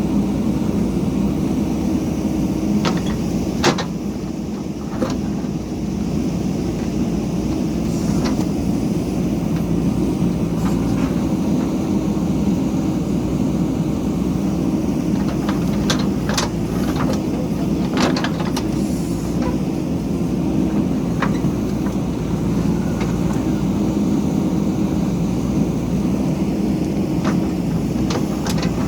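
JCB backhoe loader's diesel engine running steadily under load, with several sharp knocks scattered through it.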